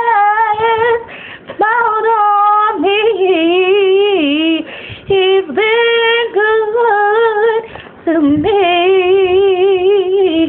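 A woman singing a gospel song solo and unaccompanied, in long ad-lib runs without clear words. Her held notes have a wide vibrato, and she breaks off briefly for breath a few times.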